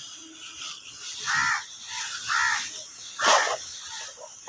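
A crow cawing three times, about a second apart, the third call the loudest.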